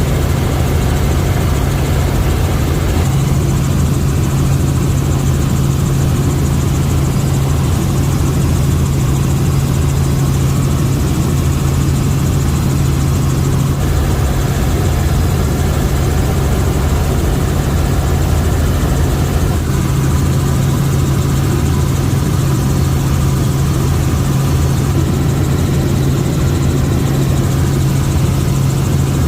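Helicopter engine and rotor running with a steady, loud drone that does not change.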